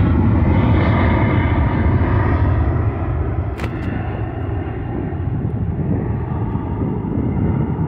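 Jet airliner's engines rumbling as it flies away, the hiss dulling and the sound slowly fading. A brief click about three and a half seconds in.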